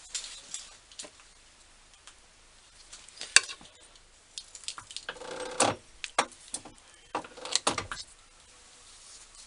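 Metal measuring tools being handled while a bored part is measured: scattered light clicks and clinks. A sharp click comes about three and a half seconds in, a short scrape about five seconds in, and a few more clicks near the end.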